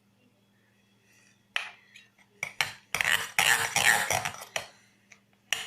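Spoon clinking and scraping against a mixing bowl as slime is stirred with its contact lens solution activator. The sound is irregular, beginning about a second and a half in and busiest around the middle.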